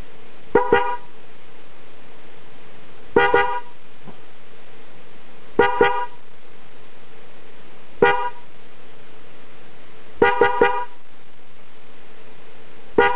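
Toyota genuine Denso electric car horn sounded in short beeps of one steady note. They come in groups about every two and a half seconds, mostly pairs, with one single beep and one burst of three, over a steady background noise.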